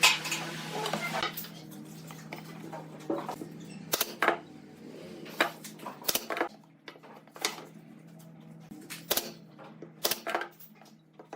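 Irregular sharp taps and knocks, about eight over several seconds, of wood parts and hand tools being handled on a workbench, over a faint steady low hum.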